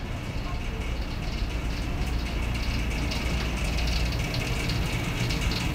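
City street ambience: a steady low rumble of passing traffic under a general hiss, growing slightly louder toward the end.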